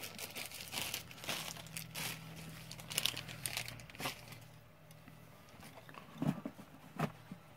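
Crinkling and rustling of toy-car packaging being handled, dense crackles for the first few seconds, then a quieter stretch and a couple of sharp clicks near the end.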